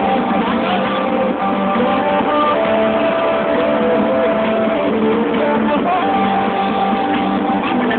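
Music with guitar, played over PA loudspeakers at a steady level.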